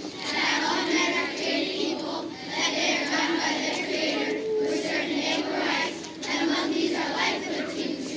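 A large group of schoolchildren speaking in unison, reciting the opening of the Declaration of Independence in phrases with short pauses between them.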